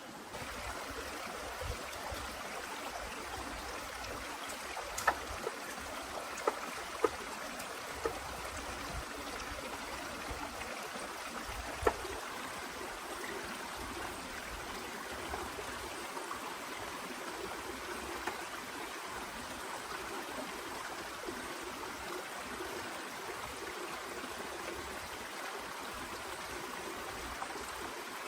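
Steady sound of running water, with a few sharp taps or knocks through the first half.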